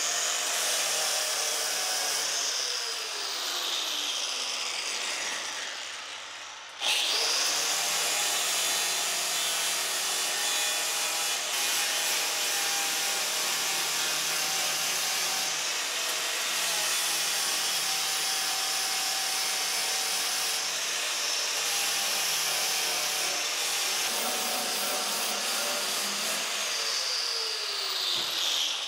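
Electric angle grinder grinding the steel body tub of a 1943 Willys MB, smoothing down welds, with a steady high grinding noise. It eases off briefly and comes back in sharply about seven seconds in.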